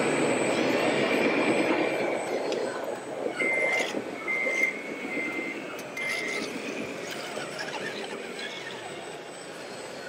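Back-up alarm from a radio-controlled model truck's sound module, beeping four times in about three seconds at one steady pitch, over steady background noise.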